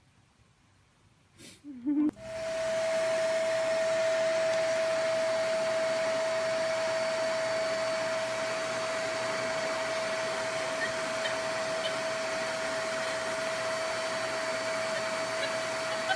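Vacuum cleaner starting about two seconds in and running steadily: an even hiss with a constant whine on one pitch.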